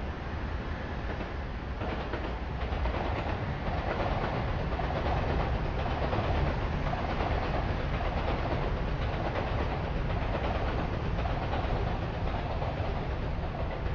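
A train passing on the rails, its wheels and running gear making a steady rumbling clatter that builds over the first few seconds and then holds.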